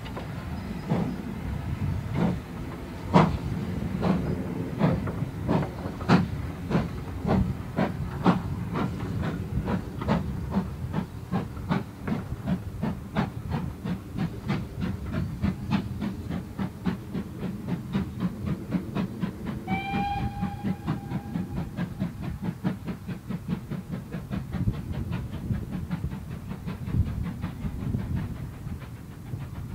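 GWR Small Prairie No. 4555 steam train passing and drawing away: sharp wheel clacks over the rail joints as the coaches roll by, then a steady rapid beat of about four strokes a second. Roughly two-thirds of the way through, a short steam whistle sounds for about a second.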